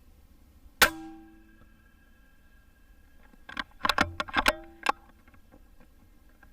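A PCP air rifle fires once: a single sharp crack with a short metallic ring. About three seconds later comes a quick run of six or seven sharp metallic clicks over about a second and a half.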